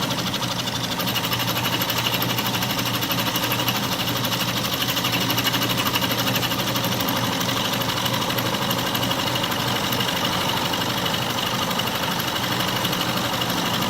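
Atlas metal lathe running with a milling attachment, its end mill taking a light cut across the steel face of a vise: a steady machine sound with a fast, even pulsing.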